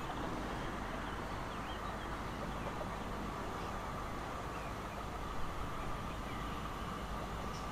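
Distant red regional electric multiple unit approaching, a steady even rumble and hiss from the train with faint short chirps over it.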